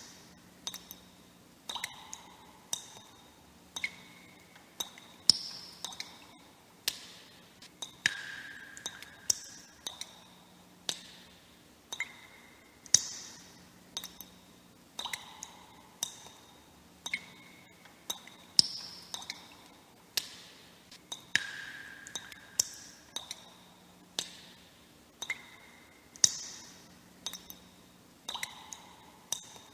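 Water droplets dripping one by one. Each drop is a sharp plink with a short ringing tone, and the drops fall at an uneven pace of about one or two a second, some higher-pitched and some lower.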